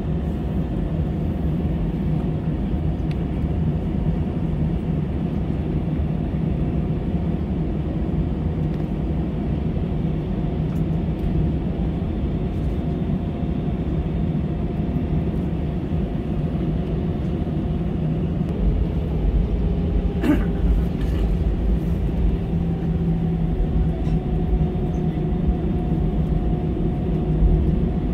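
Cabin noise of an Airbus jet airliner taxiing: a steady low hum and rumble from the idling jet engines and the rolling airframe. The deep rumble grows heavier about two-thirds of the way through, with a brief click about then.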